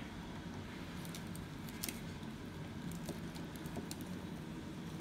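Faint, scattered light clicks and ticks of hands handling thin red-and-black power wires, over a low steady hum.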